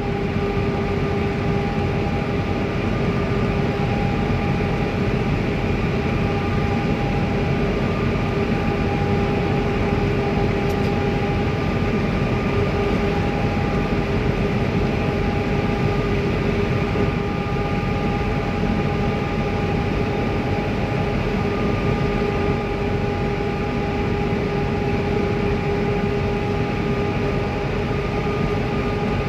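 Engine and road noise inside a vehicle moving steadily at highway speed: a continuous low rumble with a constant droning hum.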